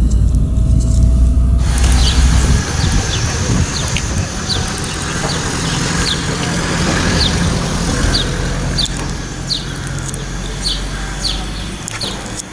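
Car running, heard from inside the moving car, for the first couple of seconds, then cut off abruptly. After that, a bird calls repeatedly outdoors in short high chirps, about two a second, over a light background hiss.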